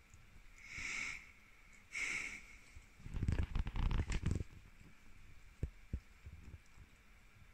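Huskies at a chew bone: two breathy sniffs about a second apart, then about a second and a half of dense crunching and scraping as teeth work the bone, and two faint clicks near the end.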